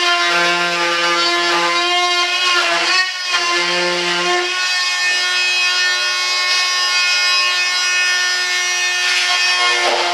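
A high-speed rotary tool running steadily with a high whine as it trims cured fiberglass, its pitch sagging and wavering briefly about three seconds in as the cut loads it.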